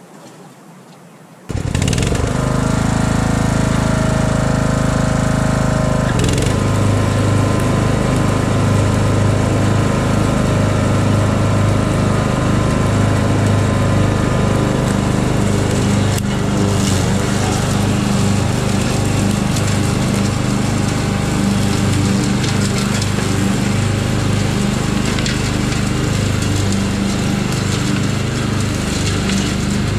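Riding lawn mower's engine running steadily. It comes in suddenly about a second and a half in, and its note changes about six seconds in.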